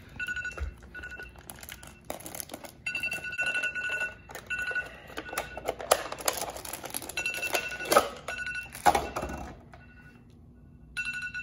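Phone alarm beeping over and over in short bursts from inside a plastic Gatorade bottle, while the bottle crinkles and clatters as it is twisted and worked open to get the phone out.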